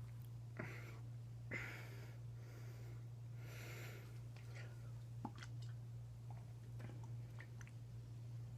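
A man breathing out heavily, three soft breaths in the first four seconds, then faint mouth or swallowing clicks, over a steady low hum.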